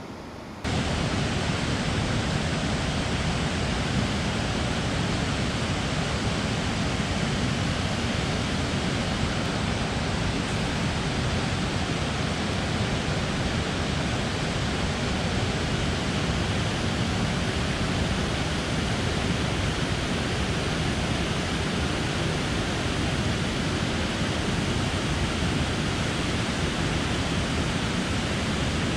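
Waterfall rushing water, a steady, loud, full-range noise that cuts in abruptly just under a second in.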